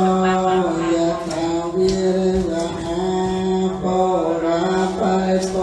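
Buddhist chanting in Pali by male voices: long notes held on a steady pitch, each breaking off after about a second before the next phrase.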